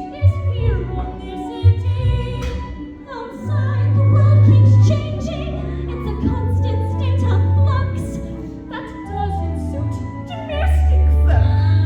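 A musical-theatre song from a stage production: voices singing over an instrumental accompaniment with a sustained, shifting bass line and light percussion.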